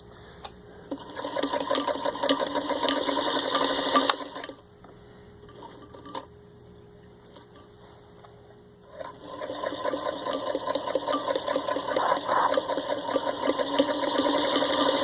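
1948 Singer 221-1 Featherweight sewing machine stitching through four layers of denim, running in two bursts with a pause of about five seconds between them. Each burst starts slowly and picks up speed.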